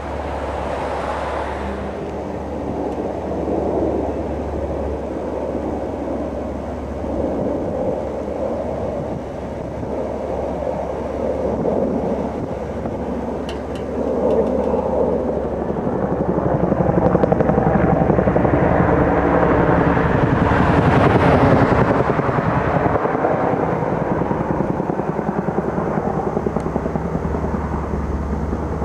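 Low-flying firefighting aircraft. A large jet airtanker passes overhead, growing louder to a peak with a rising hiss about two-thirds of the way through, and a helicopter's rotor can be heard passing close near the end.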